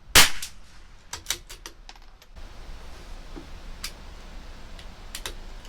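A single .22 LR rimfire shot from a CZ 457 bolt-action rifle, followed about a second later by a quick run of metallic clicks as the bolt is worked to eject the case and chamber the next round, then a few lighter clicks.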